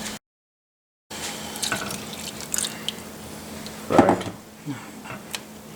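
Watery kadappa gravy bubbling and popping in the pan as it comes to the boil, with a brief vocal sound about four seconds in.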